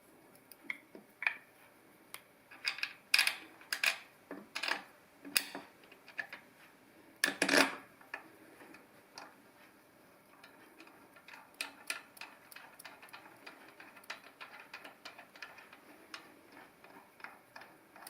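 Light metal clicks and clinks from a brake caliper and its bolt being handled and fitted against a scooter's aluminium drive casing, with a cluster of sharper knocks, one louder knock about seven seconds in, then a long run of faint quick ticks.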